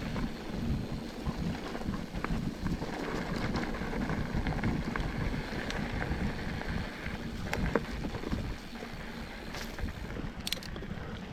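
Wind buffeting the microphone of a mountain biker riding a dirt trail, a rumbling flutter throughout. Scattered sharp clicks and knocks come from the bike and tyres over rocks and roots.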